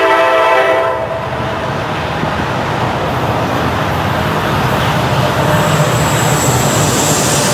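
A Norfolk Southern diesel freight locomotive's horn sounds a chord and cuts off about a second in. The rumble and engine noise of the approaching train then grows steadily louder, with a faint high squeal coming in near the end.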